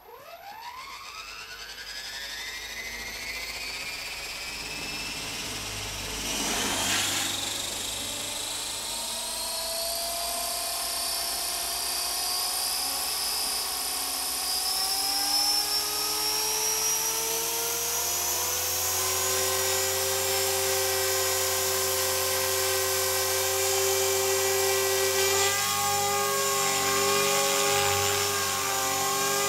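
Align T-Rex 450 electric RC helicopter spooling up: the motor and rotor whine climbs steeply in pitch over the first few seconds, then creeps higher and settles into a steady whine with a low rotor hum as it lifts off near the end. A brief rushing swish comes about seven seconds in.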